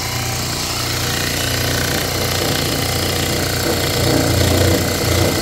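Gast electric vacuum pump running steadily, a constant mechanical hum: the pump is working and pulling vacuum for the core drill's vacuum base.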